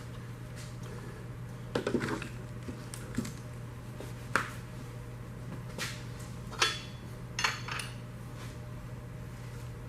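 Metal tools and parts clinking and clanking as they are handled, about six separate knocks and clinks, one ringing briefly. A steady low hum runs underneath.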